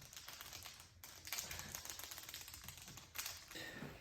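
Small plastic containers of glitter and confetti being handled and shaken out: a rapid run of light clicks and rattles.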